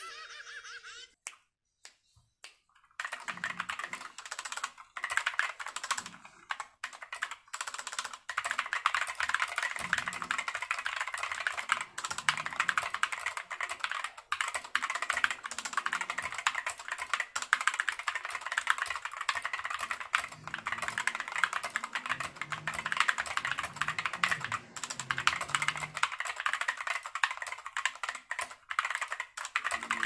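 Typing on an Epomaker Skyloong SK61 60% mechanical keyboard: a few separate key clicks, then continuous fast typing from about three seconds in, a dense clatter of key presses.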